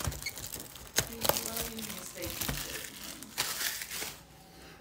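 Clear plastic shrink wrap being crinkled and torn off a trading-card box, with sharp crackles about a second in and again at about three and a half seconds. It dies down just after four seconds.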